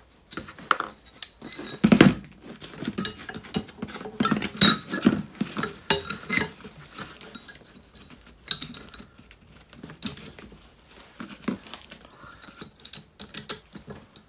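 Steel jig plates being handled and fitted around an anti-roll bar and drop link: irregular metallic clinks and knocks, with a couple of louder knocks about two and five seconds in.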